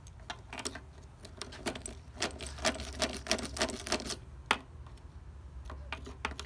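Metal key pushed in and out and wiggled in a Kawasaki Z1000 ignition lock cylinder, with rapid clicks and rattles densest in the middle and a single sharper click near the end. The key is working graphite lubricant into a sticking lock.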